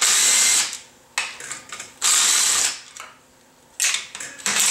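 DeWalt cordless driver spinning out the clutch-cover bolts in short runs, one at the start and another about two seconds in, with softer clicks and rattles between the runs.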